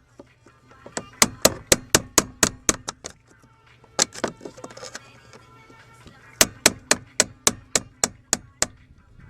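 Hammer tapping a chisel set on the corner of a headless steering-column bracket bolt to turn it out: quick metallic strikes about four a second, in two runs with a pause between them.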